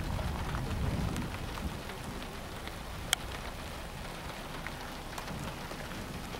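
Rain falling steadily, with scattered drops ticking and one sharp, louder tap about three seconds in. A low rumble sits under it in the first second or so.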